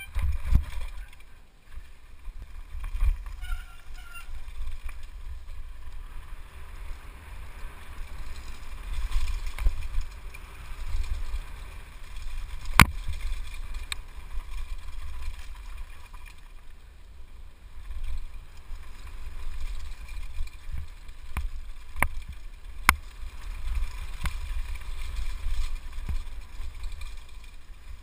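Mountain bike descending a dirt trail at speed, heard from a helmet camera: wind rumbling on the microphone and tyres running over loose dirt, with sharp knocks and rattles from the bike over bumps, the sharpest about 13 seconds in and several around 22 to 24 seconds.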